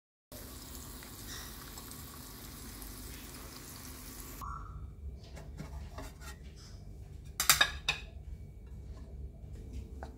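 A steady hiss for about four seconds, then crockery being handled: light clinks and a loud clatter of ceramic dishes about seven and a half seconds in.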